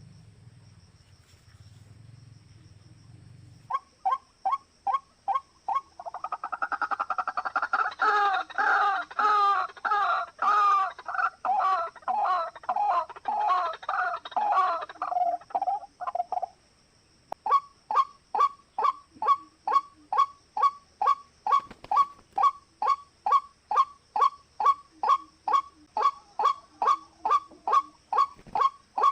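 Short, sharp bird calls repeated in a steady rhythm, about three a second. In the middle they become a louder, dense run of overlapping calls for about ten seconds, then go back to the even repeating call.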